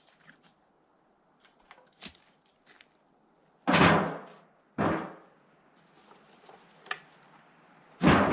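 Three heavy wooden thuds, the first two about a second apart and the third some three seconds later, with lighter knocks and clatter between: sawn boards being dropped and stacked.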